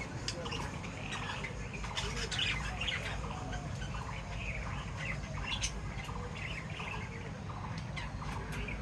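Small pet birds chirping and squawking in many short, overlapping calls, over a steady low background hum.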